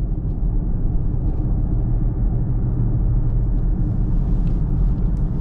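Steady low rumble of road and engine noise inside a Chrysler Pacifica minivan's cabin as it drives along a road.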